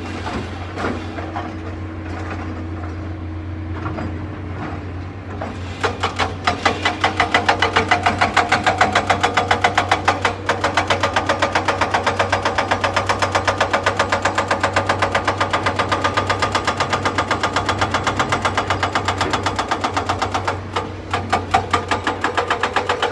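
Excavator diesel engine running, at first smooth and steady; about five and a half seconds in it rises to a louder, rapid, even clatter of several beats a second that holds to the end, easing briefly twice.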